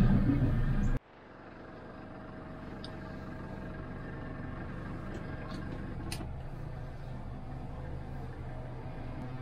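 Boat engine running, heard from inside the pilothouse cabin. A loud low hum cuts off suddenly about a second in, and the engine then carries on as a fainter, steady hum.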